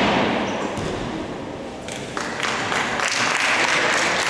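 Spectators applauding in a sports hall. The noise fades over the first two seconds, then the clapping swells again about two seconds in and keeps building.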